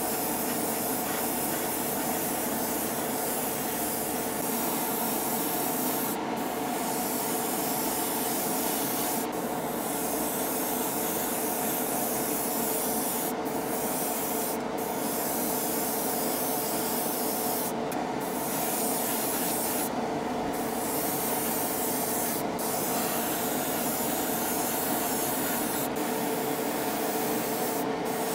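Airbrush spraying paint, a steady hiss that breaks off briefly about ten times as the trigger is let go, over the steady hum of the hobby spray booth's extraction fan.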